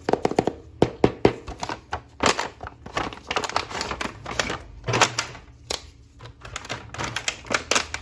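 Plastic toy packaging and an action figure handled and opened by hand: rapid, irregular plastic clicks, taps and crinkles.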